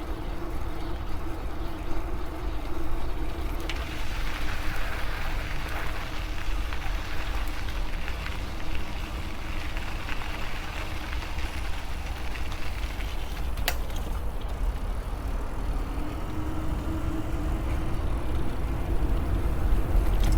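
Riding noise from a moving e-bike: wind buffeting the microphone and tyres rolling, with a steady low hum throughout. There is a single sharp click about two-thirds of the way through.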